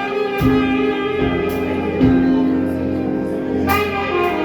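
A live band playing jazzy music, with guitar chords held and changing, and a few sharp percussive hits.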